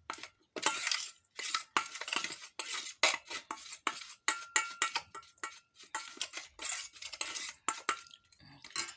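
Kitchen utensils clinking and scraping against a dish, as in stirring, in quick irregular strokes with a faint ringing note. The clatter stops just before the end.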